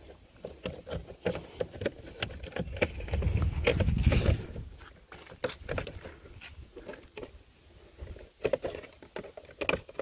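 Fingers handling and aligning a plastic side-mirror trim cover: scattered small clicks, taps and rubbing of plastic, with a low rumble lasting about two seconds starting about three seconds in.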